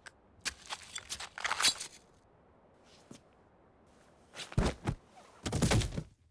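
Fight sound effects: a quick run of sharp hits in the first two seconds, a lone faint click about three seconds in, then two heavier, deeper thuds near the end.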